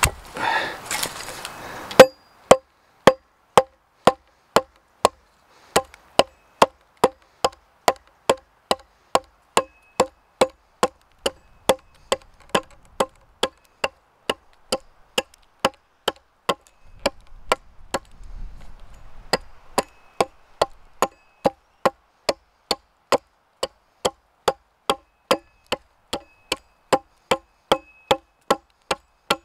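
An axe chopping into the end of a wooden stake stood upright on a chopping block, shaping it to a point. There are steady, sharp knocks on wood at about two strikes a second, after a short rustle at the start, and the strikes stop for about two seconds just past the middle.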